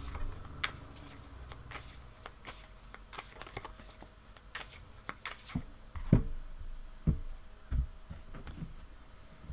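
A deck of tarot cards being shuffled by hand, with a quick run of card flicks and rustles. In the second half a few soft thumps follow as cards are laid face down on a cloth-covered table.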